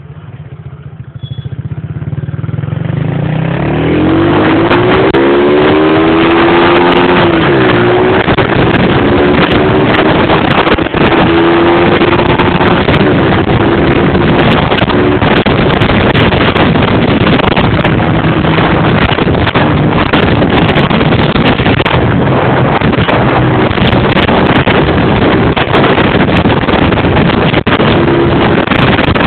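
Modenas Kriss 115 underbone motorcycle engine pulling away, its pitch rising over the first few seconds, then running steadily at speed under loud wind noise on the microphone.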